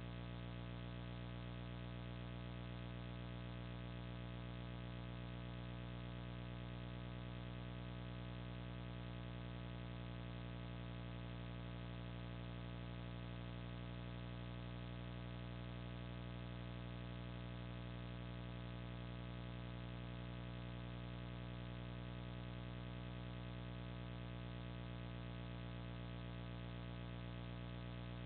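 Steady electrical hum: a low, buzzy tone with many overtones that does not change at all.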